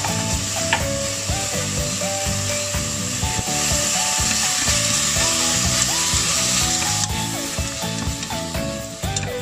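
Sliced pork sizzling as it stir-fries in hot oil with tomato and shallots in a wide pot. The sizzle grows louder from about three and a half seconds in and eases again at about seven seconds. Background music plays throughout.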